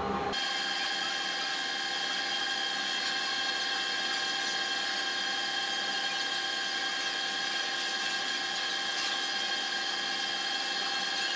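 A steady mechanical hum and whine made of several unchanging tones, thin with no deep bass, like running machinery; it cuts in just after the start.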